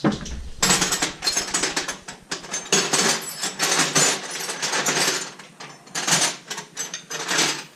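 Metal hand tools and sockets clattering and clinking, a dense run of rattling clicks in several bursts, as tools are rummaged through and handled.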